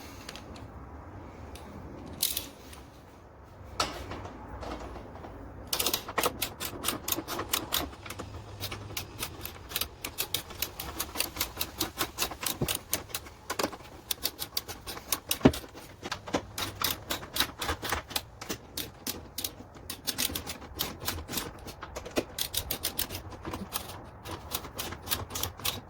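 Ratcheting torque wrench clicking in quick runs, a few clicks a second with short pauses, as the strut tower brace nuts are tightened to about 50 ft-lb; a couple of single knocks come first.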